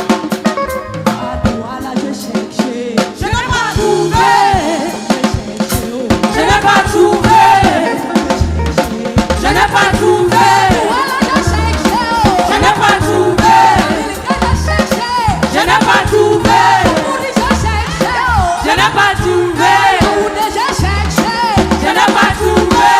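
Gospel praise music: a choir singing over a drum kit.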